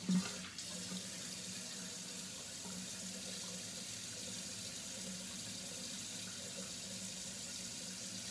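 Bathroom sink tap running steadily, with a brief knock just after the start.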